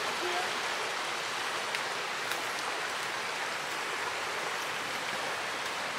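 Flowing river water: a steady, even rush of moving water.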